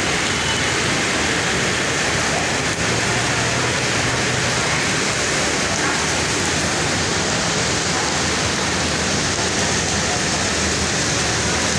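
Heavy rain pouring steadily onto wet pavement, a dense even hiss that holds at one level throughout.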